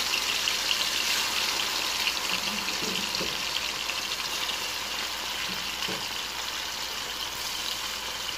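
Marinated chicken pieces frying in hot oil in a wok: a steady sizzle with small crackling pops, getting gradually a little quieter.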